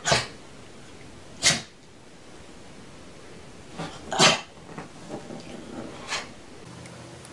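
A pet animal making short, sharp, noisy sounds, about four of them spaced a second or more apart.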